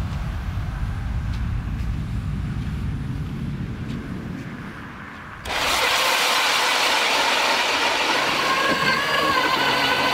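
Wind rumbling on the microphone, then, about five and a half seconds in, a power ice auger suddenly starts boring through lake ice: a loud, steady whir of the motor and the cutting blades chewing ice, with a faint whine that wavers slightly in pitch.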